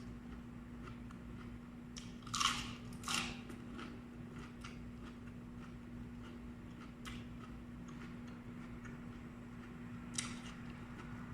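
Raw vegetables being bitten and chewed: two loud crunches about two and a half seconds in, another near the end, and soft mouth clicks between, over a steady low hum.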